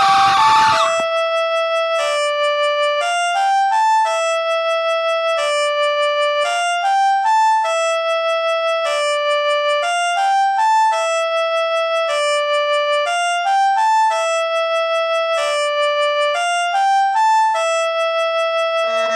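Music: a dense full-band passage cuts off about a second in, leaving a single melodic instrument playing clear sustained notes. It repeats the same short phrase over and over, about once every three and a half seconds.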